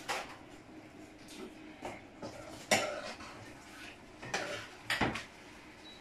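Kitchen dishes and utensils being handled: about five separate clinks and knocks, the loudest about three seconds in.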